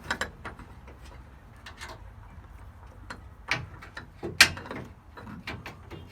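Scattered metal clicks and knocks as a new garage door roller is slid into its hinge bracket, with one sharp clank about four and a half seconds in.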